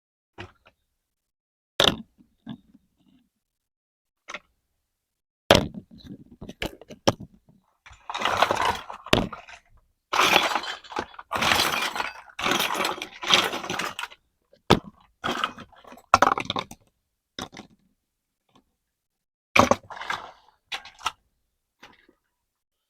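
Small plastic toy kitchen pieces being handled and unpacked: scattered sharp clicks and clacks, with a denser run of rapid clattering and rustling from about eight to fourteen seconds in.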